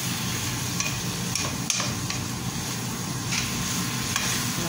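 Wooden spatula stirring sliced bottle gourd in a frying pan, with several sharp knocks of the spatula against the pan, the loudest about a second and a half in, over the steady sizzle of sautéing.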